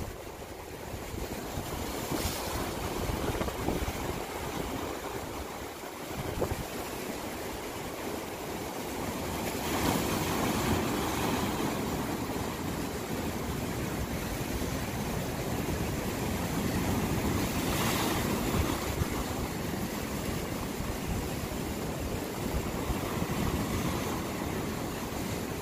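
Sea waves washing in and breaking over rocks along the shore, a steady wash that swells louder about ten seconds in and again around eighteen seconds.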